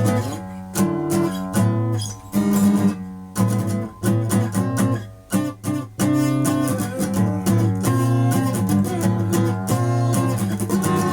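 Guitar music: strummed chords in stop-start hits with short breaks over the first half, then steadier continuous strumming.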